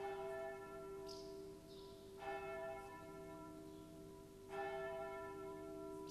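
Church bell tolling: three strokes about two seconds apart, each ringing on and slowly fading.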